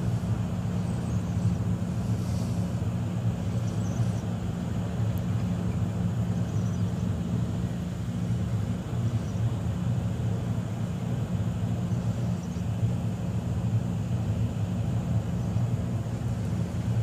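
A steady low rumble of a running engine, with no other sound standing out above it.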